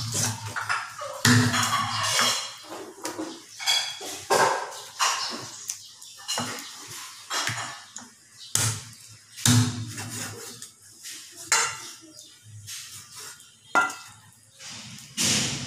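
Meat cleaver chopping raw chicken into pieces on a wooden cutting board: sharp chops at uneven intervals, each with a dull thud from the board.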